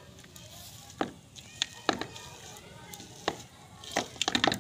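Metal potato masher pressing boiled potatoes in a steel pan, giving several sharp, irregular taps as it strikes the pan, with a cluster of quick taps near the end.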